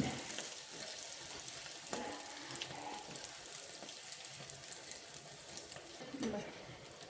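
Sel roti batter rings deep-frying in hot oil in a kadhai: a faint, steady sizzle with fine crackling.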